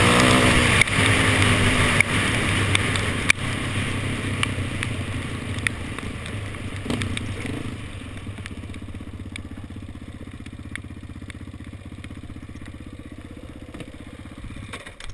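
Sport quad's engine running hard with wavering revs, then easing off and running steadier and quieter as the quad slows, with scattered clicks and rattles from the gravel track. The engine sound stops abruptly near the end.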